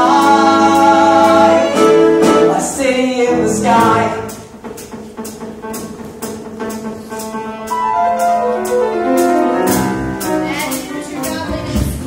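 Live musical-theatre song with a small pit band of woodwinds, strings and drums: singing over the band in the first four seconds, then the voice stops and the band plays on more quietly, with regular drum hits.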